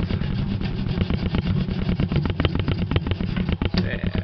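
A small engine running steadily, with a rapid even beat.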